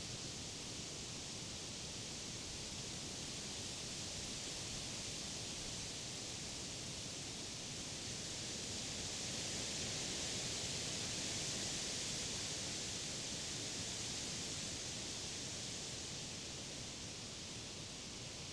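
Wind rustling through the leaves of summer trees, a steady hiss that swells in a gust about halfway through and then eases off.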